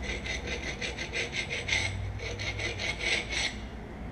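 Emery cloth strip rubbed back and forth on an International Harvester 1066 tractor's steel rear axle shaft, about six quick scraping strokes a second, stopping about three and a half seconds in. It is scouring off rust and buildup where the wedges sat, to clean the surface the axle seal rides on.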